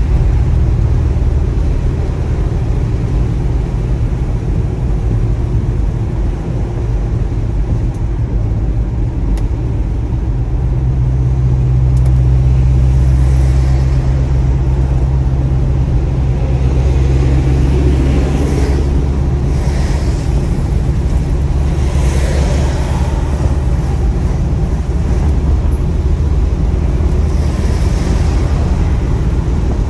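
1965 Pontiac GTO's V8 engine running with a steady low rumble, growing a little louder about a third of the way in. Bursts of hiss come and go over it in the second half.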